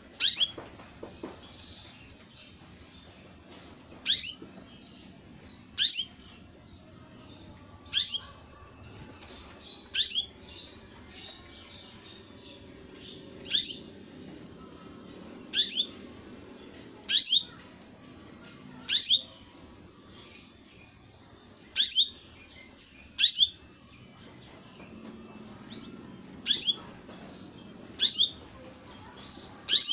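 Young domestic canary giving single short call notes, one every two seconds or so, each a quick high chirp that falls sharply in pitch; separate calls rather than a continuous song.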